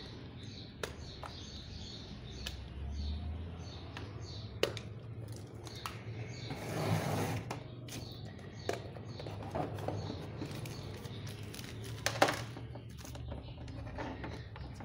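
Handling of a digital multimeter and its test leads: scattered light clicks and knocks, with a short scuffing noise about seven seconds in and a quick cluster of clicks around twelve seconds.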